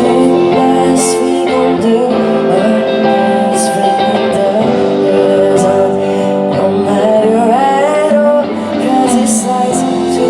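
Live pop music: a singer with guitar accompaniment, playing a song through the stage sound system.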